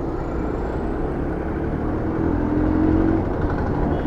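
Motorcycle running on the road, with a steady engine hum under road noise.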